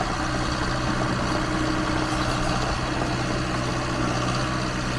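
Heavy engine idling steadily with an even low hum, the engine sound given to a toy bulldozer.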